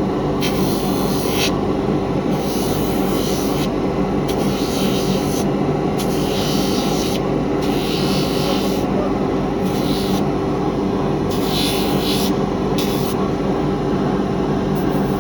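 Motor-driven shoemaker's grinder running steadily with a constant hum. A sneaker's lasted bottom is pressed against the wheel again and again, each pass a hissing grind about a second long. This flattens the bottom so a sole can be cemented on.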